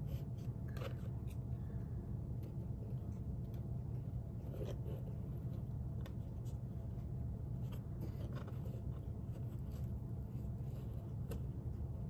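Faint rubbing and scattered light taps as small wooden craft pieces and a broken folding-ruler piece are shifted about on a wood panel, over a steady low hum.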